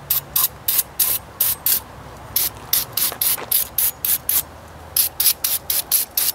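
Quick back-and-forth rubbing strokes on the surface of a new tractor water pump, about three strokes a second with a couple of brief pauses, working at the waxy shipping grease coated on it.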